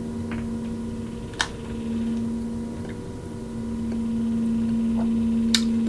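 Steady low hum, swelling slightly in level twice, with a single sharp click about a second and a half in.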